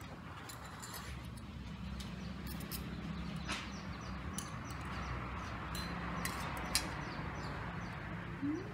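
Spoon and fork clinking and scraping against a metal plate, a few sharp clicks spread through, over a steady low hum. Near the end a dove coos once.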